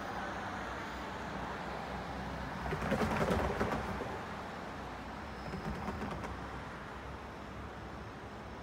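A bird calling twice over a steady background hum: a louder call about three seconds in and a softer one about six seconds in.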